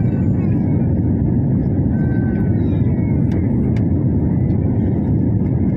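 Cabin noise of a jet airliner in flight: a loud, steady, low rumble of engines and rushing air, heard from a window seat.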